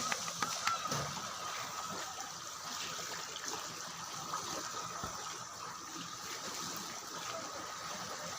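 Water trickling and lapping in a steady wash, with a faint steady high tone over it and a few small clicks in the first second.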